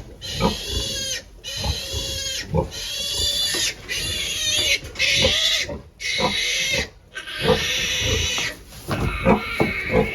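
Pigs squealing: a run of about seven high-pitched squeals, each about a second long with short breaks between them, with some knocking underneath that is heavier near the end.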